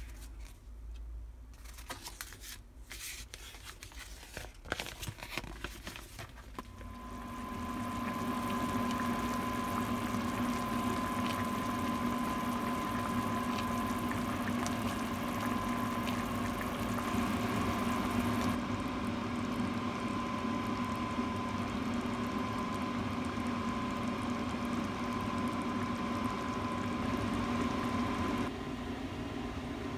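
Clicks and rustles from handling food packaging, then from about seven seconds in a steady kitchen hum with liquid bubbling, as a pot of braised spicy chicken (dakbokkeumtang) with potatoes and onion cooks on the stove.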